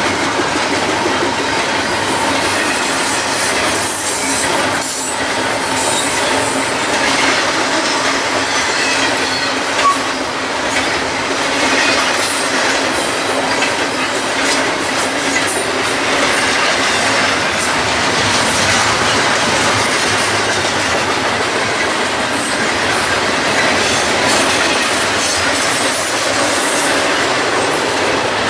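Double-stack container freight cars rolling past: a steady rumble of steel wheels on rail, with a run of clicking as the wheels cross rail joints.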